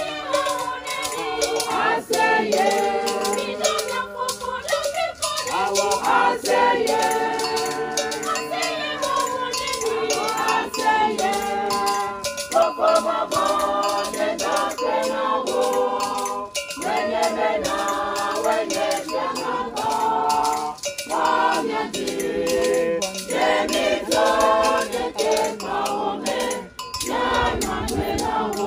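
A group of voices singing together in harmony, accompanied by a rattle shaken in a steady beat.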